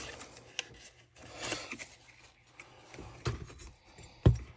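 Small engine parts and tools being handled on a workbench: scattered light scrapes and clicks, with one sharp knock near the end.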